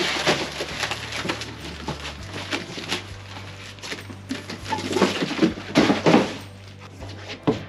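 Cardboard shipping box and packing being handled and moved: rustling and scraping, with many scattered knocks and clatters.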